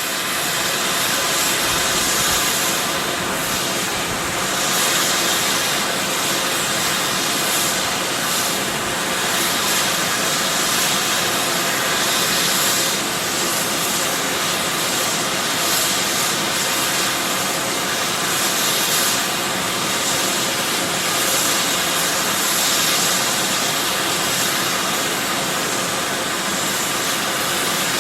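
Sulphur fumarole venting volcanic gas at close range: a powerful, steady hiss with slight surges, strongest in the upper range.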